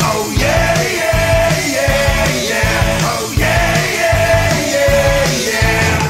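A hockey goal song: rock music with a steady driving drum beat and a singing voice. It cuts off at the very end.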